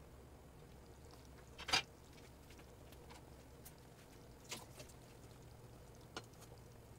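Pot of thick fish curry simmering: a few short, sharp pops and clicks over a faint low steady hum. The loudest comes about two seconds in, then two close together in the middle and one more near the end.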